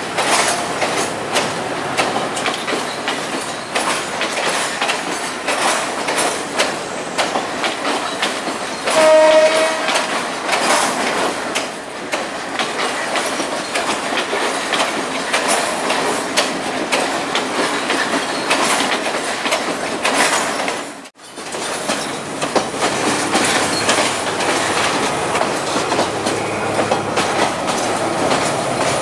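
Sri Lankan diesel multiple unit's carriages rolling past, wheels clicking over the rail joints, with a short horn blast about a third of the way through. The sound drops out for a moment about two-thirds of the way in, then the rolling and clicking go on.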